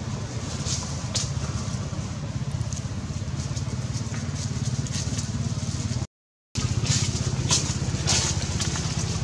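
A steady low engine-like rumble with a fast even pulse runs throughout, under scattered light crackles of dry leaves. The sound cuts out completely for about half a second just after six seconds in.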